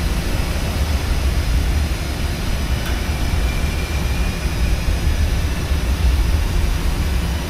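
Car ferry under way, its engines and propellers running in a steady low rumble that carries up through the deck.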